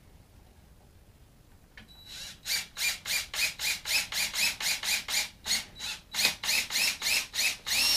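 Cordless drill driving a 3-inch screw through the door jamb into the stud, its clutch ratcheting in quick even clicks, about four a second, starting about two seconds in. Just before the end the drill runs steadily.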